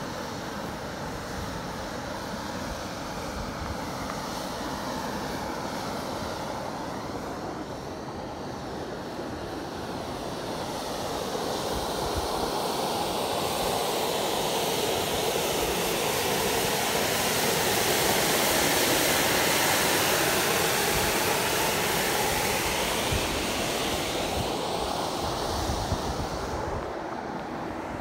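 Volcanic fumarole venting steam and gas under pressure, a steady jet-like roar. It swells to its loudest about two-thirds of the way in, then eases off near the end.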